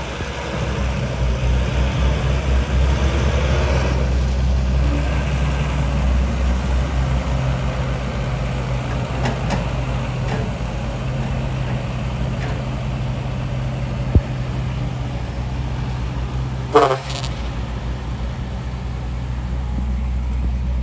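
Heavy diesel machinery engine running steadily with a low hum. There is a sharp click about 14 seconds in and a brief loud noise near the end.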